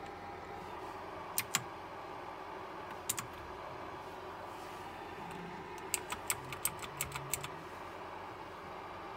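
Clicky blue mechanical switches of a KLIM Domination keyboard clicking as single keys are pressed. There are two clicks about a second and a half in, two more around three seconds in, then a quick run of about eight clicks.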